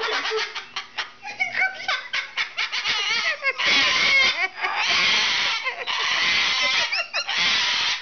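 Sulphur-crested cockatoo screeching: a run of short clicks and chirps, then from about halfway three long harsh screeches, one after another.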